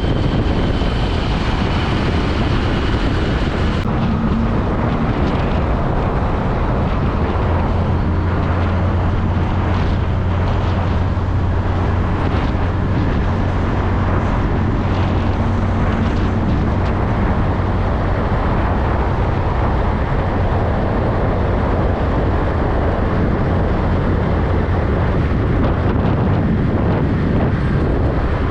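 Heavy container truck traffic on a street: a steady diesel engine rumble with road and tyre noise. The low engine hum swells through the middle of the stretch and eases off again.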